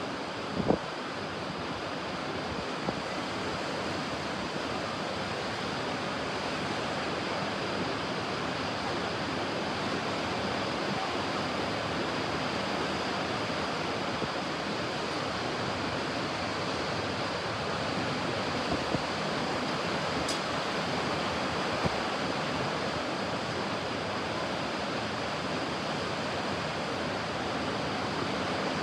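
Ocean surf washing onto a beach, a steady, even rush of waves. A brief thump sounds just under a second in.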